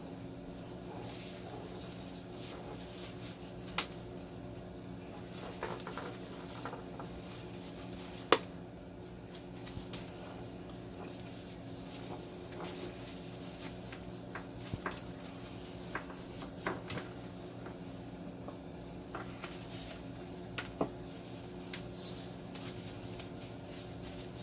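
A wiring-harness cable being handled and wiped clean of sticky residue: scattered light clicks, knocks and rubbing, with a sharp knock about four seconds in and a louder one about eight seconds in, over a steady low hum.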